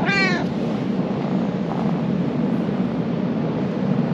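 A domestic cat gives one short meow right at the start, over a steady low background rumble.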